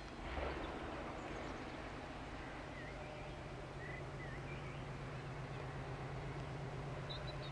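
Distant Class 56 diesel-electric locomotive, its engine droning steadily and growing slightly louder as it approaches. A brief louder sound comes about half a second in, and birds chirp faintly now and then.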